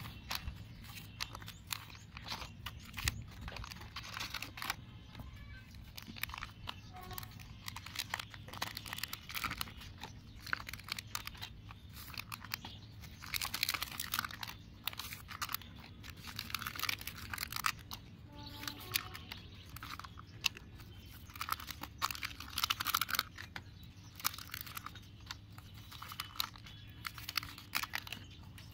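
Dry compost ingredients (straw, dried leaves, powders and shredded newspaper) being tipped out of plastic cups and moved about by hand, making irregular crunching and rustling, busiest in the middle and near the end. Soft background music plays underneath.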